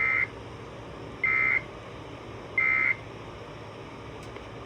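Emergency Alert System end-of-message data bursts: three short, identical digital warbles, each about a third of a second and a little over a second apart, over a steady hiss. They are the coded signal that closes the alert.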